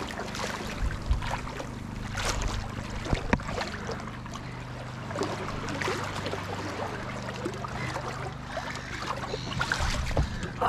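Footsteps splashing and sloshing through knee-deep shallow seawater, at an uneven wading pace, over a low steady hum.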